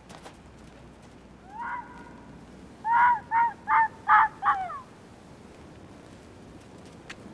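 South American grey fox barking: one call, then a quick run of five sharp barks, each dropping in pitch at its end.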